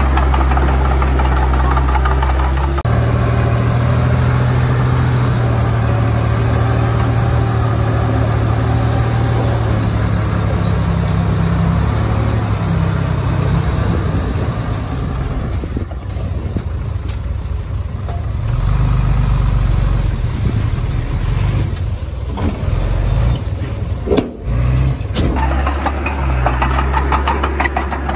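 Heavy diesel engine of earthmoving machinery running, its pitch rising and falling as it works under load. The sound changes abruptly about three seconds in and again near the end.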